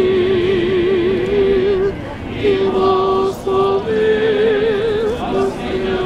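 Ukrainian Catholic liturgical chant: voices singing long held notes with a wide vibrato, broken by short pauses between phrases.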